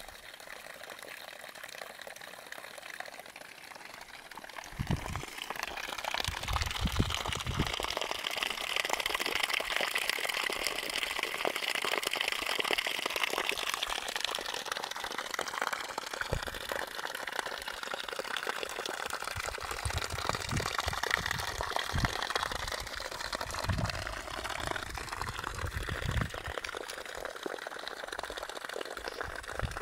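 Spring water pouring and trickling into concrete troughs, a steady splashing that grows louder about five seconds in. Occasional low thumps come through it.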